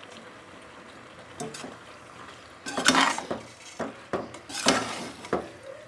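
Metal spoon scraping and clanking against an aluminium pot while macaroni is stirred into the masala, in irregular strokes, the loudest about three seconds in.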